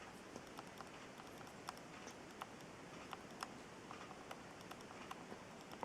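Faint, scattered small clicks and taps of plastic model-kit parts being handled and pressed together, over quiet room tone.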